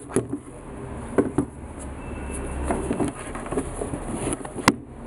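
Handling noise of sneakers being moved about on cardboard shoeboxes: rubbing and scattered soft knocks, with one sharp click near the end.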